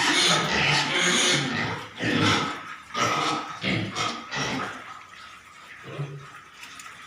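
Pigs squealing and grunting in loud, irregular outbursts, heaviest in the first couple of seconds, then in shorter separate calls that thin out.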